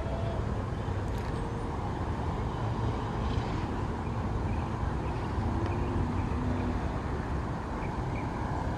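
Steady outdoor background rumble, like distant road traffic, with no distinct events standing out.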